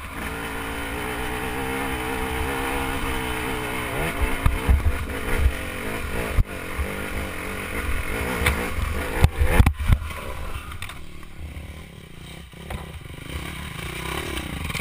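Enduro motorcycle engine running on a rough trail, revs rising and falling, with heavy knocks and clatter from the bike over bumps starting about four seconds in and several sharp cracks. The engine drops back and goes quieter for a while near the end.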